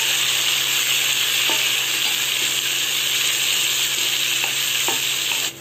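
Sliced onions frying in oil in a kadai, a steady sizzle, stirred with a wooden spatula that scrapes and ticks against the pan a few times. The sizzle cuts off abruptly near the end.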